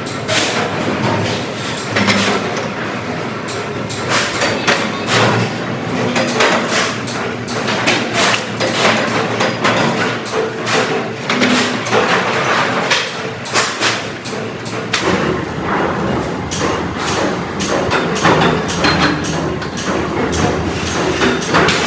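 Dense, irregular knocking and clatter of factory work, with many sharp hammer-like strikes.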